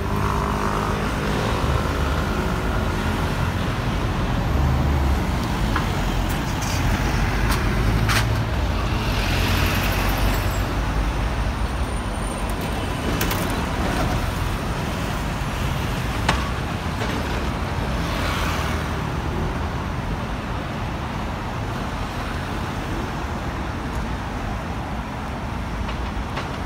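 Steady road traffic of double-decker buses, cars and vans running and passing. A few short hisses come near the middle, and a sharp click about sixteen seconds in.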